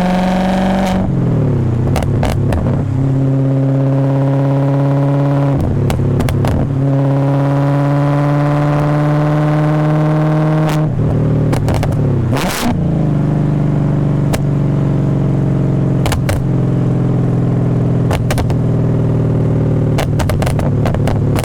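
BMW E39 540i's 4.4-litre V8 through a straight-pipe exhaust and Summit Racing muffler, pulling hard with its pitch climbing, then dropping sharply at each of three upshifts before settling into a steadier, lower drone. Sharp crackles cut in now and then, the biggest cluster shortly after the third shift.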